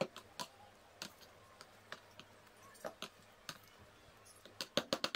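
A utensil tapping and scraping against a plastic mixing bowl as chicken pieces are stirred into thick batter: faint, scattered clicks that come quicker and louder near the end.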